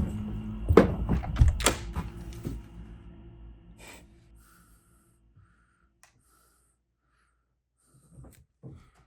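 A few heavy thuds over a low drone that fades away over a few seconds, leaving near silence.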